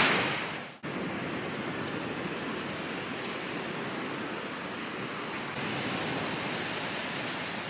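Steady, even rush of beach ambience, surf and wind, cutting in abruptly about a second in.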